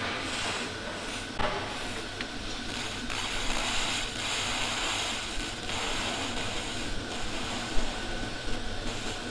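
Pulsed 200 W laser cleaning machine ablating putty and paint off a car body panel: a steady hiss that swells and fades as the beam sweeps, louder from about three seconds in, over a low steady hum. There is a sharp click early on and a knock near the end.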